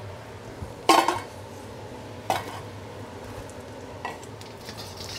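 Raw garlic sizzling gently in oil in a wok over low heat, infusing its fragrance into the oil. The garlic is stirred, with three short clinks of a utensil against the wok about a second, two seconds and four seconds in.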